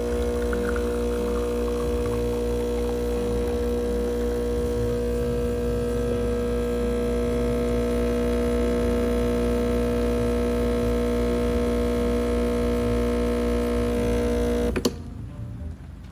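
Breville espresso machine's pump humming steadily while pulling a shot of espresso, then cutting off with a click near the end as the shot finishes.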